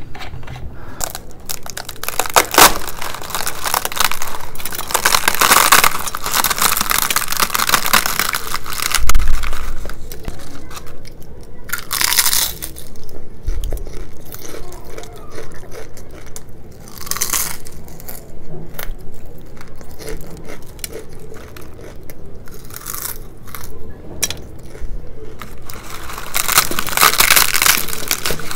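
Close-miked chewing and crunching of crisp, hard-fried puri, crackly and irregular. Near the end comes a loud tearing and crackling as a big puri is broken apart by hand.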